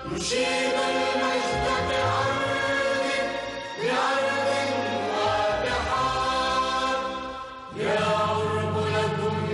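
Choir singing a patriotic song in long held phrases over instrumental backing. A new phrase starts about four seconds in and again about eight seconds in.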